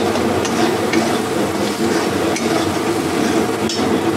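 A metal spatula stirring and scraping spiced onion masala in a metal kadai, over a steady sizzle of the masala frying in oil, with a few sharper scrapes against the pan.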